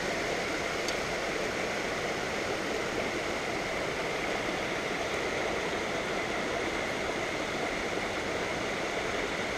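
Steady rush of water from a small stream spilling over a low concrete dam.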